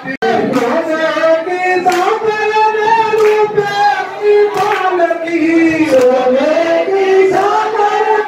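Hindu devotional singing of a Krishna bhajan: long, gliding sung lines with a few sharp claps. The sound cuts out for an instant about a quarter second in.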